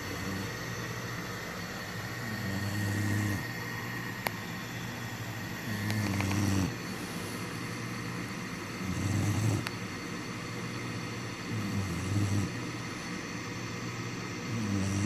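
Black Labrador puppy snoring in its sleep: five low snores about three seconds apart, with a brief click about four seconds in.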